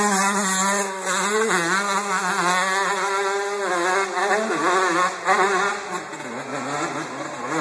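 Several dirt bike engines running at once, idling and revving so that the pitch wavers up and down. They get somewhat quieter about six seconds in.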